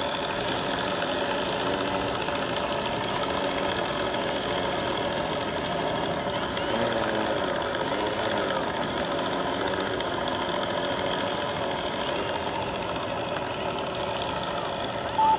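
Simulated radial engine idling, played through the onboard sound-system speaker of an electric Flightline F4U-1A Corsair RC plane. It runs steadily, with some wavering in pitch around the middle, and a short beep sounds near the end.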